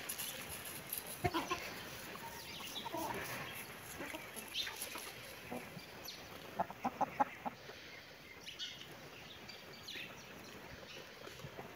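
Domestic hens clucking: short calls scattered throughout, with a quick run of about five clucks around the middle.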